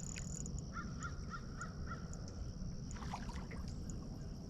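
A bird calling faintly in the distance: a quick run of about five short, evenly spaced calls about a second in, over a steady low outdoor background.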